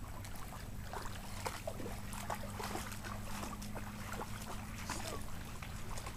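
Waterside ambience: small waves lapping with scattered light splashes and ticks, over a steady low drone.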